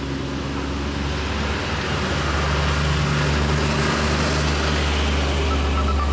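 A motor vehicle engine running close by, a steady low hum with traffic noise that grows louder about two seconds in.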